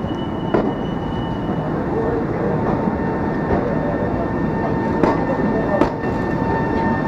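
Electric commuter train passing close along the platform: a steady rumble of steel wheels on rail, broken by a few sharp clicks over the rail joints. A thin steady whine joins in from about five seconds in.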